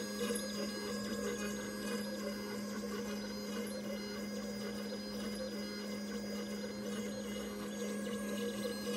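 Pocket NC V2 desktop five-axis CNC mill running with its spindle cutting a workpiece: a steady low hum with fainter constant high-pitched tones above it.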